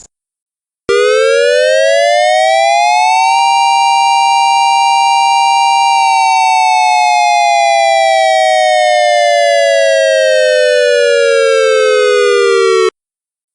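Simulated dual-tone tornado siren, tuned to about 932 Hz by 788 Hz, sounding one wail. It starts suddenly about a second in, rises for a couple of seconds, holds its top pitch briefly, then winds slowly down over about seven seconds and cuts off abruptly.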